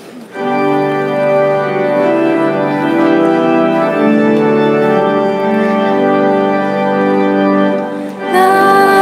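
Organ playing held chords as the introduction to a hymn, with singing joining in near the end.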